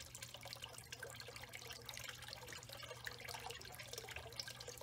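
Faint trickling and dripping of pond water, with many tiny droplet ticks over a low steady hum.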